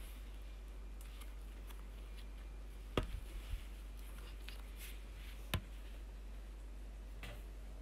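Thick pink slime being folded and pressed by hand on a tabletop, giving faint sticky crackles and clicks, with two sharp pops: one about three seconds in and another about five and a half seconds in. A steady low hum sits underneath.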